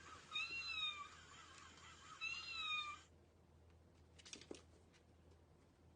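A cat meowing twice, short meows that rise and fall in pitch, about two seconds apart. The sound cuts off abruptly about halfway through, leaving a few faint clicks.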